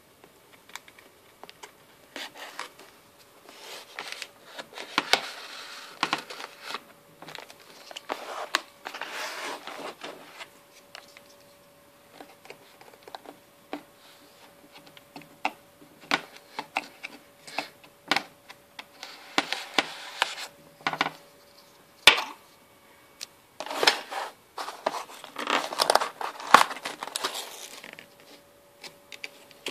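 A cardboard mail package being opened with a folding pocket knife: tape and cardboard cut and scraped, paper rustling and crinkling, with many sharp clicks and knocks, the sharpest about two-thirds of the way through. A faint steady hum runs underneath.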